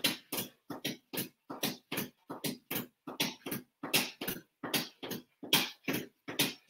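Fast, even rhythm of hard, puffing breaths, about three a second, from a man doing mountain climbers, the exhales keeping time with his stepping feet.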